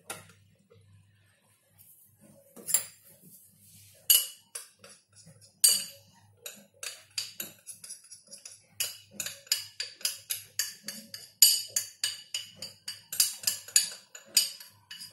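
Light clinks and taps of a small cup of cornstarch being knocked and scraped against the rim of a stainless steel food-processor jug to empty it. The taps are sparse at first and come several a second in the second half.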